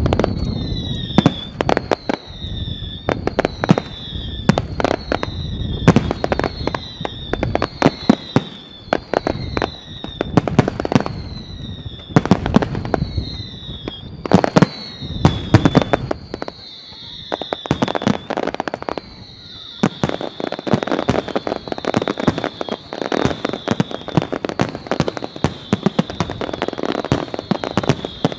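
Fireworks display: a dense run of sharp bangs from aerial shells bursting, one after another without pause. Over the bangs, a high whistle falling in pitch repeats about once a second, turning steadier in the second half.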